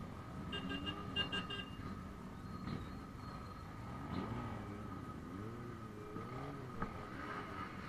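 Motorcycle engines running at low speed in slow traffic, revved up and down a few times in the second half. A quick run of short high beeps sounds about a second in.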